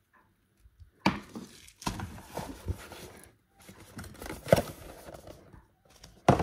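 A white cardboard box and its insert being handled and moved on a table: about five knocks spaced roughly a second apart, with rustling and scraping of cardboard between them, and the loudest knock near the end.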